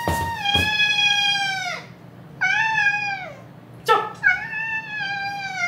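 A pet cat meowing three times, in long drawn-out calls that slide down in pitch at the end, with a sharp click just before the third. The cat is demanding its meal.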